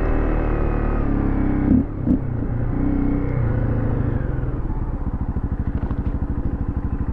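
Dirt bike engine running as the bike rides a dirt trail, with two sharp thumps about two seconds in. From about halfway it drops to a low, evenly pulsing run at slow speed.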